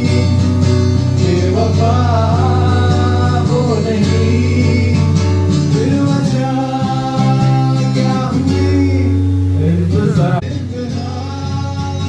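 Live acoustic guitar with a man singing into a microphone. About ten seconds in the sound drops suddenly and goes on more quietly.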